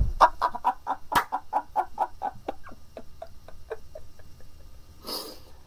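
A person laughing in a quick run of short 'ha' pulses that fade away over about four seconds, with a sharp click about a second in.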